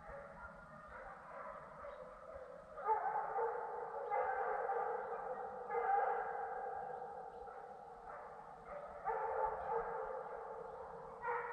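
A pack of deer hounds baying out in the woods: several dogs' long, drawn-out bawls overlap, growing louder about three seconds in with fresh outbursts at about six, nine and eleven seconds. This is the cry of hounds running a track.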